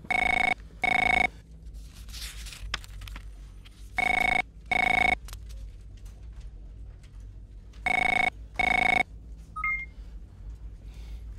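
Electronic office telephone ringing in double rings, three times about four seconds apart, then a short beep near the end.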